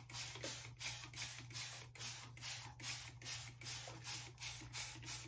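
Handheld spray bottle of aloe vera juice and leave-in conditioner being pumped rapidly, about four short misting hisses a second, sprayed onto hair.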